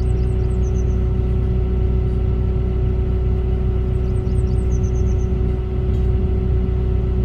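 Volvo excavator's diesel engine running steadily with a low drone and a steady hum. Short high chirps come in near the start and again about four seconds in.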